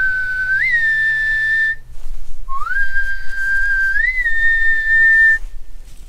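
A person whistling to call bison in for feed: two long whistles, each sliding up at the start, stepping up in pitch partway through and then held.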